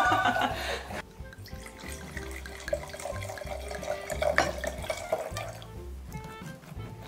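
Red wine poured from a bottle into a wine glass, loudest in the first second and trailing off into a quieter pour, over background music with a steady bass beat.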